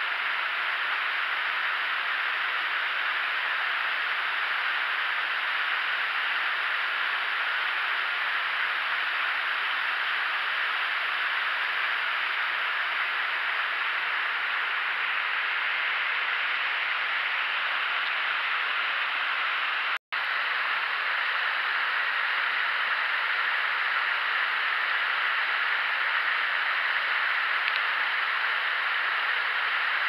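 A waterfall and its creek cascading over rocks: a steady, even rush of water, cut by a split-second dropout about two-thirds of the way through.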